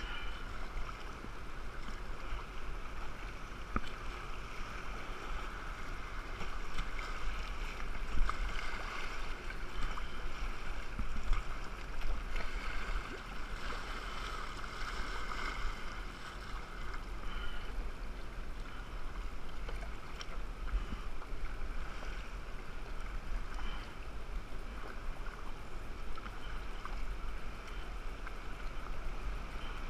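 Steady rush and lapping of river current around a whitewater kayak being paddled, with occasional paddle-blade splashes and knocks.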